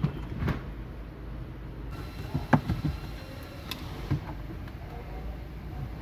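Scattered knocks and clicks from handling parts in a car during a stereo install, the loudest about two and a half seconds in, over a steady low hum.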